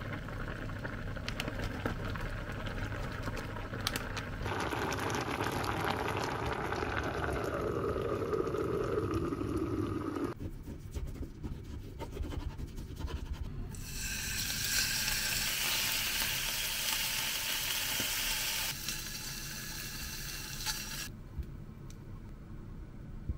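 Kitchen cooking sounds in sequence. First comes a liquid noise whose pitch falls over several seconds, then a knife slicing raw beef on a cutting board with small ticks. Last, about five seconds of loud sizzling as the beef sears in a hot pan.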